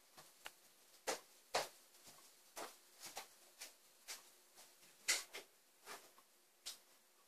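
Faint, irregular clicks and light knocks, about eight of them spread unevenly, over a faint steady hum.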